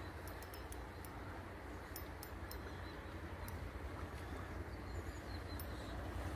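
Quiet outdoor background with a steady low rumble and scattered faint high ticks.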